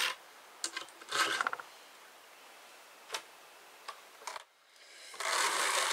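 Hand-cranked drum carder turning: a steady whirring rattle of its drums and gearing starts about five seconds in, after a few light clicks and knocks from hands working the fibre on the drum.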